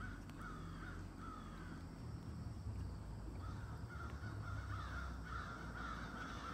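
Birds calling in a run of short repeated notes, a few each second, sparse for a couple of seconds after the start and coming thickly from about halfway through, over a faint low steady rumble.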